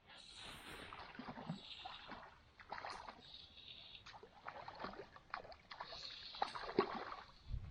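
Water splashing and sloshing in irregular strokes, the sound of something moving in shallow water, such as a hooked fish being landed.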